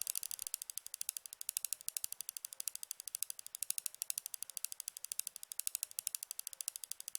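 Rapid, even mechanical ticking: sharp, bright clicks at roughly ten a second, like a ratchet.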